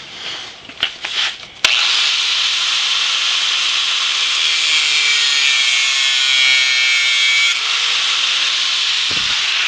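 A power tool starts about two seconds in and runs steadily under load, a continuous loud grinding hiss cutting into metal, after a couple of sharp clicks.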